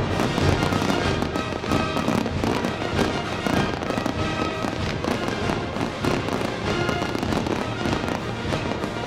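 Fireworks display: a dense, rapid run of crackling and popping shell bursts, with music playing underneath.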